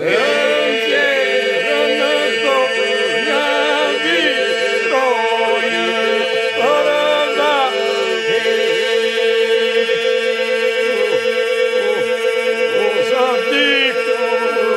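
Albanian Lab iso-polyphonic singing, unaccompanied. Voices hold one steady drone while solo voices weave ornamented, gliding melodic lines above it. The song begins abruptly.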